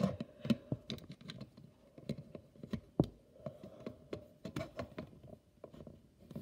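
Irregular small clicks and taps of plastic and metal as fingers handle a toy truck's plastic chassis and work a thin metal rod into it, the sharpest click about three seconds in.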